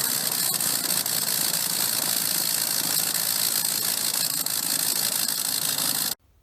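A motor running steadily with a strong hiss, cutting off abruptly about six seconds in.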